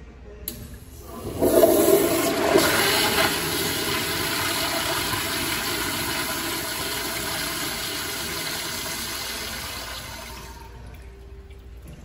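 Commercial flushometer toilet flushing. A loud rush of water starts just over a second in, stays steady for about nine seconds, and tapers off near the end.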